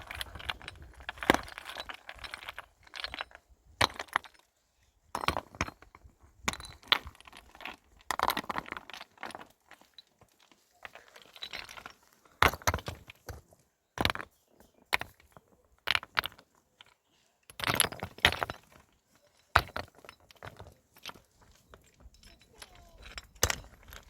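Stones clinking, knocking and scraping against each other as they are handled and set, in irregular bursts with short pauses: loose stones being stacked to rebuild a dry-stone shelter wall.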